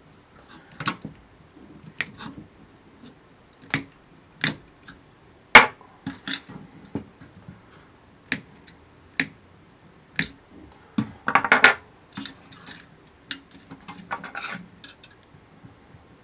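Wire cutters snipping through wires one by one to free the connectors, about a dozen sharp clicks at irregular intervals. Between cuts come short bursts of rustling as the wires are handled.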